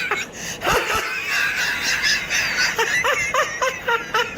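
A person's crazy, high-pitched laughter: a long wavering cackle, then a run of quick, clipped 'ha' bursts at about four a second.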